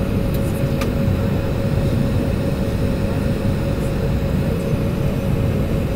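Cabin noise inside an Embraer E190 taxiing after landing: the GE CF34 turbofans at idle give a steady hum over a low rumble from the ground roll. A faint click comes just under a second in.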